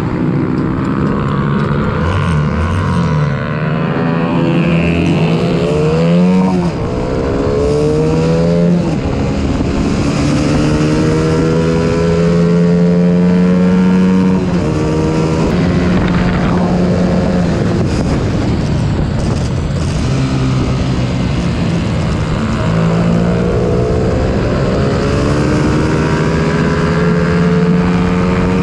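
Honda CBR125R's single-cylinder four-stroke engine running at high revs on track, heard on board. Its pitch climbs and drops back several times as the rider shifts gear and rolls off the throttle.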